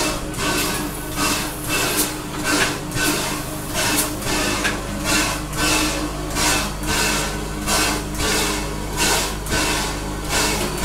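Standing steam locomotive with its steam-driven air pump working: an even rhythm of hissing pants, about two a second, over a steady low hum.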